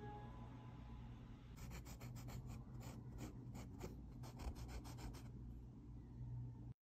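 Pencil scratching in a quick run of short shading strokes on a drawing made on fabric, about six strokes a second for nearly four seconds, over a low steady hum. The sound cuts off abruptly near the end.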